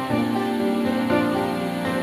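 Soft, slow instrumental background music with sustained notes; no machine sound stands out.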